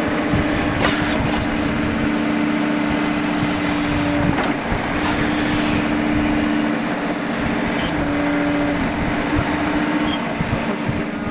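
Kubota B21's three-cylinder diesel engine running while the backhoe bucket is moved on its hydraulics; a steady hum drops out and comes back a few times as the hydraulic load changes.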